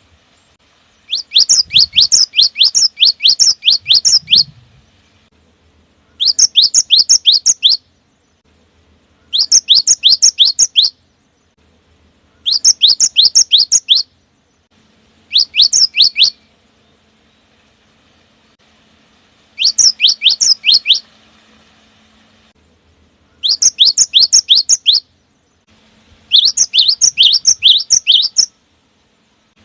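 Cinereous tit (gelatik batu) singing in repeated bursts of quick, high, downward-slurred notes. Each burst lasts a second or more and is followed by a short pause.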